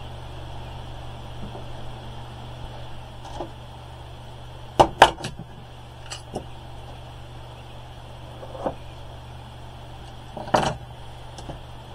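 A few sharp clicks and knocks of a plastic ruler and scissors being handled on a cutting mat, a cluster about five seconds in and another near the end, over a steady low hum.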